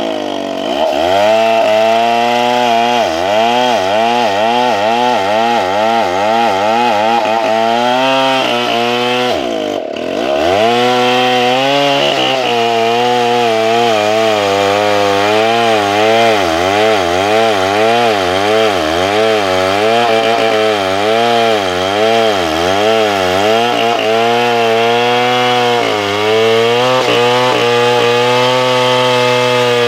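Stihl 070 two-stroke chainsaw cutting into a large tree trunk under load. Its engine pitch rises and falls about once a second. The engine speed drops sharply near the start and again about ten seconds in, picks back up, and runs steadier near the end.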